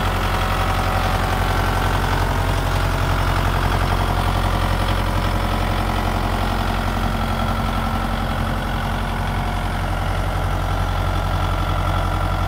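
Kioti DK5310 HST tractor's diesel engine idling steadily.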